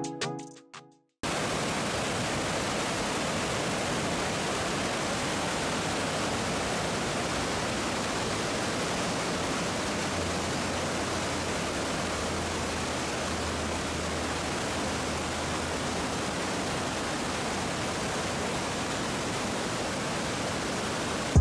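Steady rushing roar of a waterfall, cutting in suddenly about a second in, with a faint low hum joining about halfway through.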